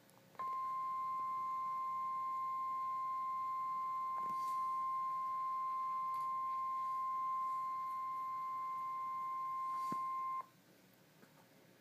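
NOAA Weather Radio warning alarm tone: one steady high beep that starts about half a second in, holds for about ten seconds, then cuts off sharply. It signals that a National Weather Service warning broadcast follows, here a severe thunderstorm warning.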